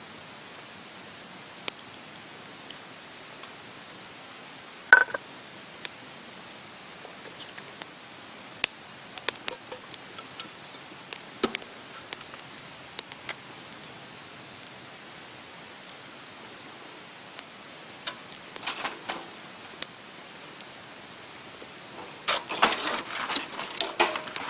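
Wood fire crackling: a steady hiss with scattered sharp pops, one louder pop about five seconds in. Near the end comes a quick run of clattering, rattling clicks.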